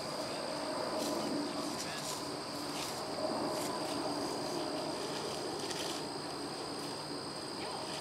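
Meadow insects trilling in a steady, high-pitched chorus, with people talking in the background.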